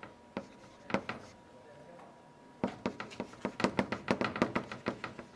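Chalk tapping and scraping on a blackboard as characters are written: a few sharp taps, a pause of about a second and a half, then a quick, dense run of taps.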